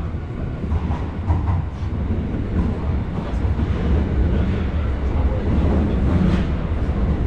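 Train running, with a steady low rumble that grows slightly louder toward the end.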